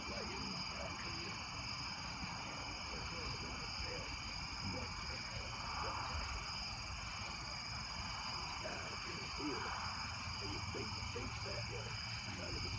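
A steady chorus of night insects trilling at several high pitches, with faint, indistinct voices murmuring underneath.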